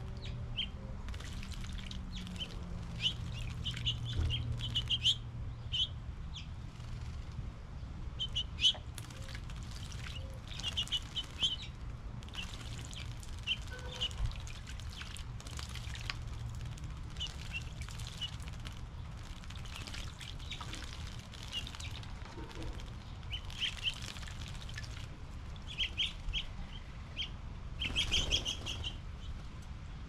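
Small songbirds chirping in short quick series, with splashing and wing flutters as they bathe in a stone birdbath, over a low steady hum.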